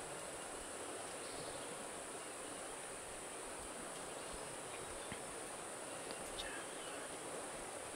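Steady high-pitched drone of insects, with a few faint ticks in the second half.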